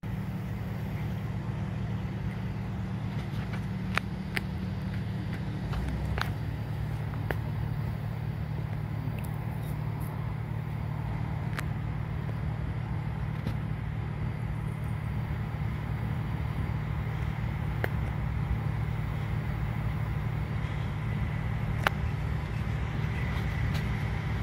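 Low, steady diesel rumble of an approaching CSX freight train's locomotives moving at slow restricted speed, with a few faint clicks.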